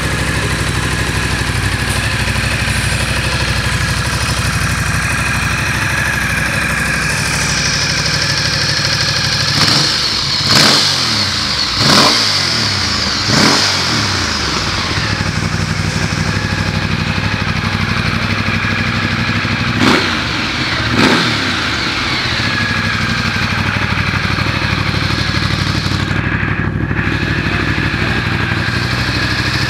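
Ducati Multistrada's V-twin engine idling steadily. About a third of the way in comes a run of four quick throttle blips, and about two-thirds in two more.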